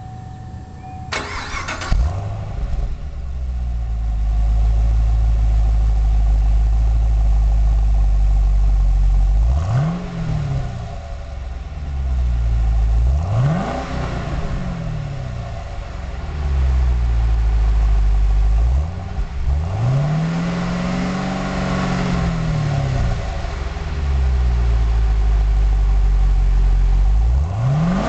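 Stock exhaust of a 2010 Chevrolet Camaro SS with the 6.2-litre LS3 V8: a brief crank about a second in, the engine catching and settling into a steady, deep idle. It is then blipped twice, held up in a longer rev in the second half, and starts another rev at the end.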